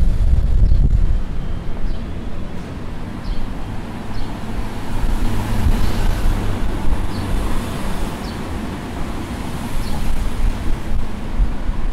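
Street traffic noise, a steady rumble and hiss of passing vehicles, with wind buffeting the microphone, strongest near the start. Faint short high chirps sound now and then.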